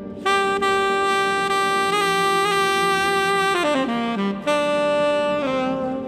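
Recorded saxophone solo played back through a tube preamp and speakers. It holds one long note, runs quickly down, then sets in on another held note that steps down once, over a soft ambient backing.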